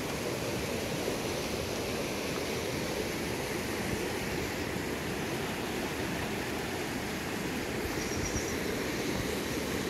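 Steady rush of a small rocky river, its water running over boulders and rapids.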